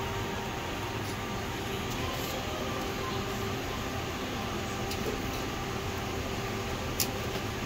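Steady mechanical background hum with a few faint steady tones, and a single small click near the end.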